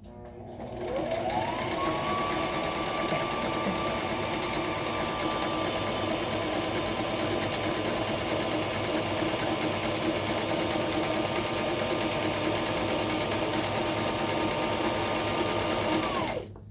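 Brother XR3774 sewing machine running a zigzag stitch along a fabric edge: the motor speeds up about a second in, runs at a steady speed, then slows and stops just before the end.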